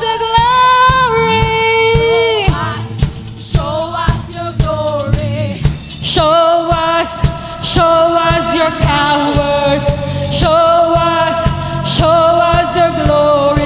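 Worship band playing, with singing in long held notes over a steady drum beat.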